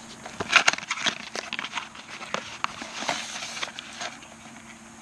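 Cardboard box being slid out of its sleeve and opened by hand: a run of irregular crackles, scrapes and clicks of cardboard and packaging, strongest about half a second in.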